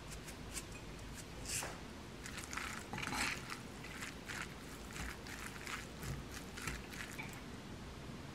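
A wooden spoon stirring and scraping bean sprout rice and its seasoning around a ceramic bowl: a series of short scrapes and soft squishes, two of them louder in the first few seconds.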